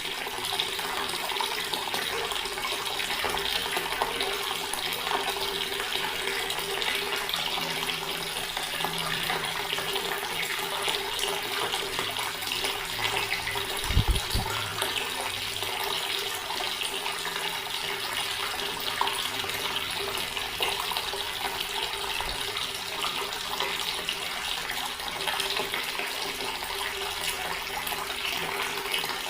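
Water running steadily from a tap into a stone basin, a continuous splashing flow. There is one brief low thump about halfway through.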